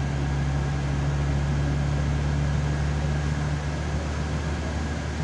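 SA139 diesel railcar running at speed, heard from inside the passenger compartment: a steady low engine drone with an even running hiss. One of the engine's hum tones drops away about four seconds in.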